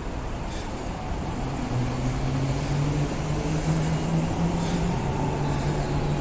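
Keikyu local train approaching the station platform: a rumble that grows louder, with a low steady motor hum coming in about a second and a half in and stepping up a little in pitch.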